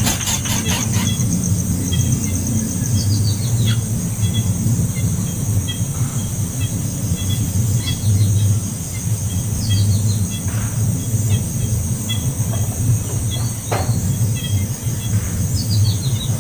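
Birds chirping, with short repeated chirps and several calls that fall in pitch, over a steady low hum and a continuous high-pitched whine.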